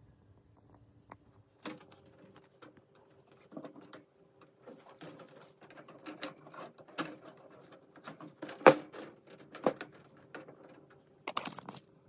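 A hamster scrabbling about its cage in paper bedding: irregular clicks and rustles, the sharpest one a little past the middle, over a faint steady hum.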